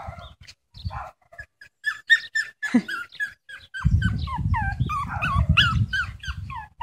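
Small dog whining and yelping in a quick run of short, high, falling cries, several a second, from about two seconds in. A low rumbling noise sets in under it from about four seconds in.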